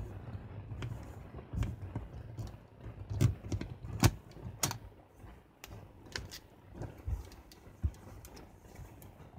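Handling of a Canon A-1 film SLR by cotton-gloved hands: a string of short sharp clicks and knocks, loudest about four seconds in, with soft rubbing between, as the lens is twisted off the body's mount.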